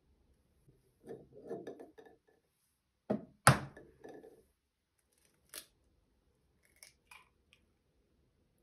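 Kitchen utensils and dishes being handled: a short run of soft knocks and rustling, then two sharp knocks about three seconds in, the second the loudest, followed by a few light clicks.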